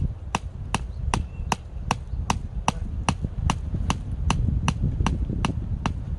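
A blade chopping firewood in quick, evenly spaced sharp strokes, about two and a half a second.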